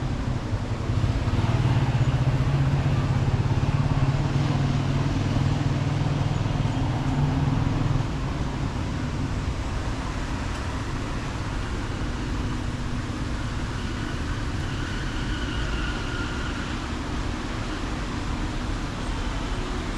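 Street ambience with car traffic. A loud low hum for the first several seconds stops abruptly about eight seconds in, leaving a steadier background of passing cars.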